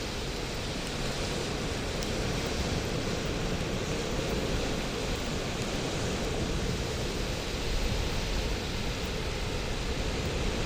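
Bonfire burning: a steady rushing noise of the flames, with no strong pops.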